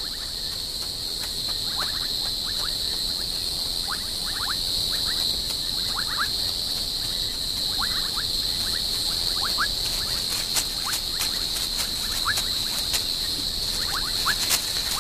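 Night ambience of a steady high-pitched insect chorus, with scattered short chirping calls over it and some faint clicking in the last few seconds.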